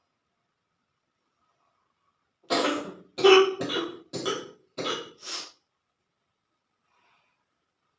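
A person coughing in a quick fit of six coughs starting about two and a half seconds in, the throat and nose irritated by chili used to provoke sneezing.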